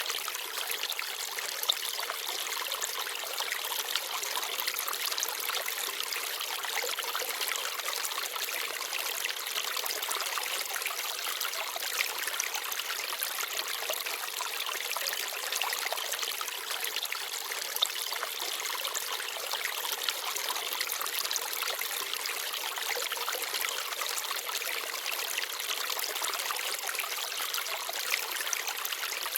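Small forest stream babbling and trickling steadily over rocks, with a few brief sharper splashes.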